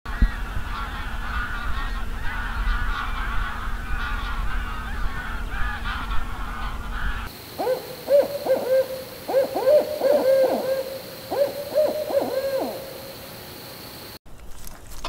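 Many birds calling over each other in a dense, steady chatter with a low rumble beneath, cut off abruptly about seven seconds in. Then an owl gives a quick series of short hoots that rise and fall in pitch, lasting about five seconds.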